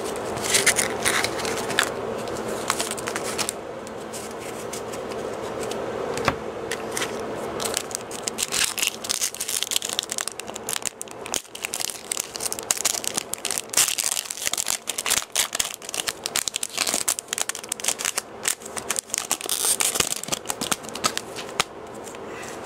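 Foil wrapper of a Pokémon trading card booster pack being torn open and crinkled close to the microphone: continuous crackling with many small sharp clicks.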